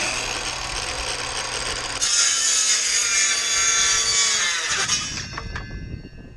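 Cordless circular saw started and cutting along a wooden board. The cut gets louder about two seconds in, then the blade winds down about five seconds in, followed by a few light knocks.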